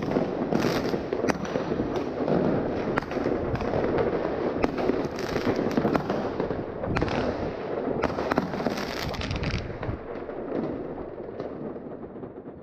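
Many fireworks going off at once, a continuous din of rocket bursts, bangs and crackling firecrackers with frequent sharp reports standing out, thinning and fading away near the end.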